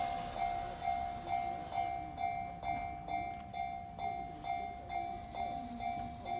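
Japanese railway level-crossing warning bell ringing in a steady, even 'kan-kan' rhythm of about two strikes a second, warning that a train is coming.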